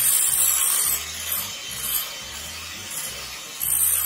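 Electric hand mixer whipping cream in a glass bowl, its beaters churning and scraping in loud bursts of hiss, longest in the first second and again near the end.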